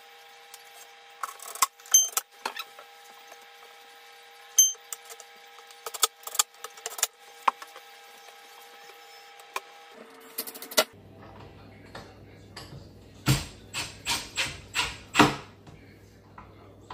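Scattered light clicks and knocks of a cabinet handle and screws being handled, then a cordless drill/driver driving a handle screw through the cabinet door in a series of short bursts near the end.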